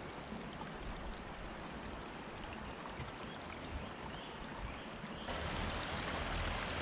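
Shallow woodland stream trickling over stones and leaf litter, a steady babble that gets louder about five seconds in.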